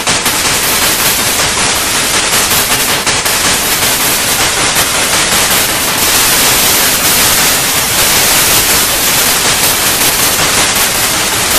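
Analog TV static: a loud, steady hiss of white noise with a fast, rattling flutter in its level, a little louder and brighter from about halfway through.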